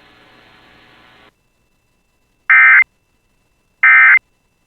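Emergency Alert System end-of-message signal: two short, loud bursts of SAME digital data tones about a second and a half apart, closing the weather-radio alert. Before them, faint radio hiss cuts off about a second in.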